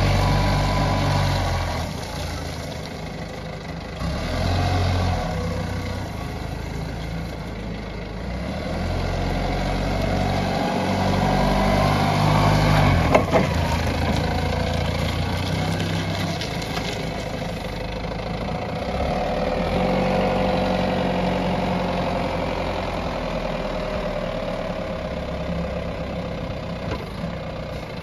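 Diesel engine of a Toyota 7FDF20 forklift running, its speed rising and falling as the truck drives and raises its mast. The engine climbs in pitch to a peak about halfway through, marked by one brief sharp knock.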